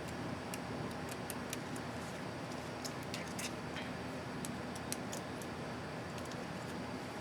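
Light, irregular plastic clicks and ticks of a laptop keycap and its hinge clips being handled and snapped into place, over a steady background hum.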